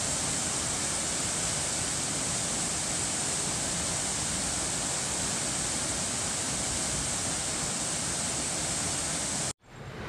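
Waterfall pouring over rocks: a steady, even rush of water. It cuts off abruptly about nine and a half seconds in and gives way to a quieter rushing.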